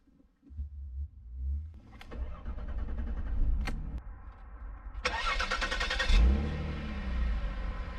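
2005 Jaguar S-Type's 3.0-litre V6 being started: a couple of clicks, then the starter cranking for about a second about five seconds in, and the engine catching with a brief flare in revs before settling into a steady idle.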